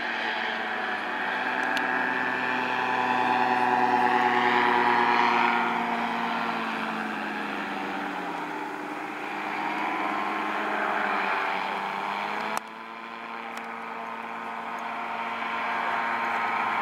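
Powered paraglider (paramotor) engines droning overhead, the pitch sagging and then recovering around the middle as a machine passes. The level drops abruptly about two thirds of the way in, and the drone goes on.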